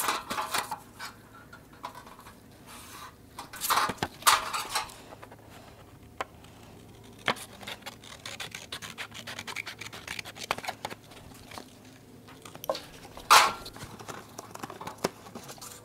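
A paper template being handled and rubbed against a steel dash panel: rustling and scraping swishes, with scattered light taps and scratches between them.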